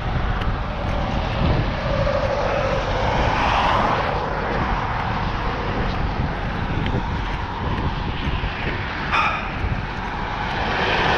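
Highway traffic going by close, a steady rush of tyres and engines, with one vehicle passing about three seconds in.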